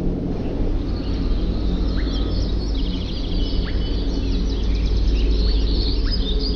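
Small birds chirping, with a fast trill from about two and a half seconds in, over a steady low rumble.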